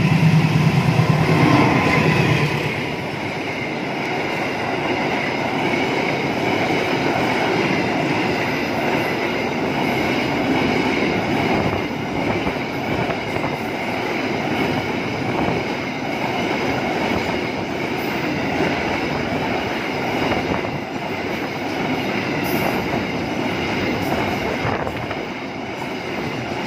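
Freight train hauled by a diesel locomotive passing close by. A loud pitched locomotive sound in the first two and a half seconds gives way to a long steady rumble of container and tank wagons rolling past, with wheel clatter and a steady high wheel squeal.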